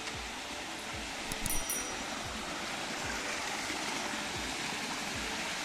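Steady rush of running stream water, with soft low thumps a little more than once a second and a brief high chirp about one and a half seconds in.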